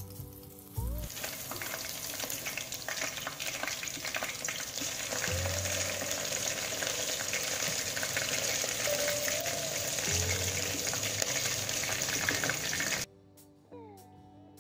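Vegetable and shrimp fritter batter frying in hot oil: a loud crackling sizzle that starts suddenly as the batter goes into the oil, about a second in. It stops abruptly near the end, leaving only quiet background guitar music.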